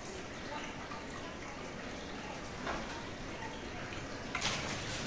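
Faint room noise with a brief scrape a little under three seconds in, then a louder rustling scrape of handling noise starting near the end.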